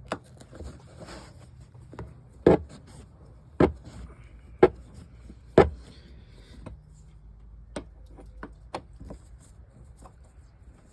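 Irregular metal clicks and four louder knocks about a second apart, from a Torx T50 bit, tools and bolts being handled while bolts are taken out of the cargo area of a Chevy Trailblazer.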